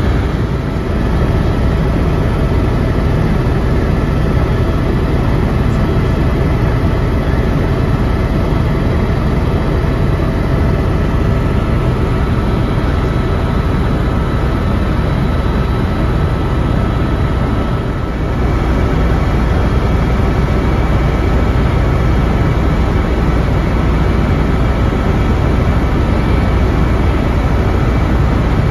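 Helicopter in cruise flight heard from inside the cabin: a loud, steady drone of turbine engine and rotors with several steady whining tones on top, dipping briefly about eighteen seconds in.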